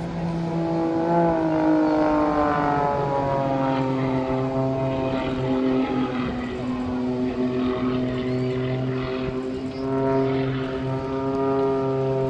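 Propeller engine of a hybrid jet-and-piston aerobatic aircraft running at high power while it hangs on its tail in a hover. The engine note drops in pitch a second or two in, then holds steady.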